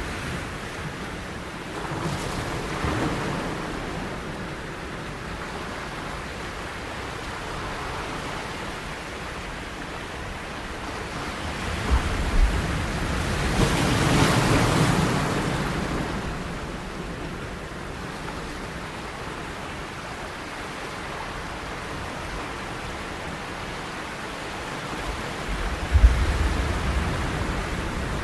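Sea waves washing in a steady rush of surf, with one larger wave building and breaking louder about halfway through. Short low thumps come about twelve seconds in and again near the end.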